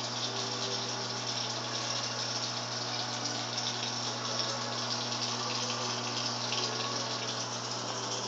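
LG microwave oven running: a steady rushing fan noise with a low electrical hum underneath.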